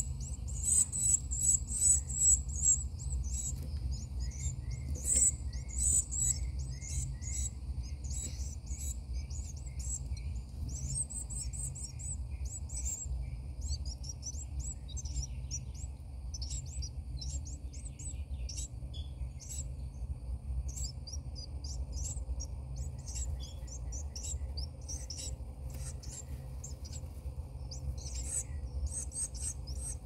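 Carolina wren nestlings begging for food with rapid high-pitched chirps, dense and loudest in the first few seconds, then thinning to scattered chirps. A steady low rumble runs underneath.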